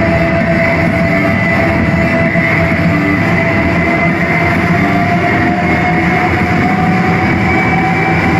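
Electronic dance music build-up played loud over a big live sound system: a dense wash of noise with a synth tone that slowly rises in pitch.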